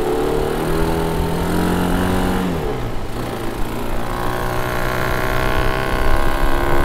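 Small ATV quad bike engine running while riding on sand. Its pitch climbs slowly, drops suddenly about two and a half seconds in as the throttle eases off, then holds steady and grows louder toward the end.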